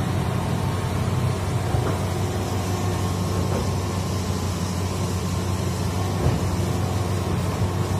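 Hitachi hydraulic excavator's diesel engine running steadily with a low, even drone while the machine swings.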